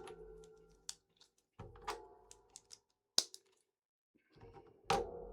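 Plastic LEGO pieces clicking and tapping as they are handled and pressed together: about five sharp clicks spaced roughly a second apart, some followed by a brief rattle.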